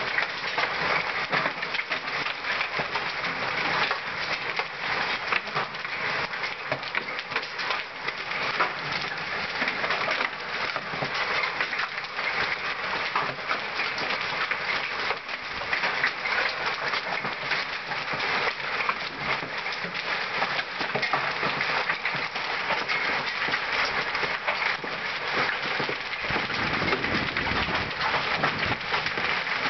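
Hailstorm with heavy rain: a dense, steady clatter of countless hailstones and raindrops hitting brick paving and nearby surfaces. A low rumble builds near the end.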